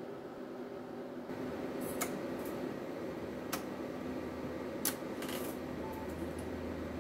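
Steady hum and air noise from a 500 W LDMOS HF linear amplifier and its cooling fan, growing fuller about a second in. Over it come three sharp clicks about a second and a half apart.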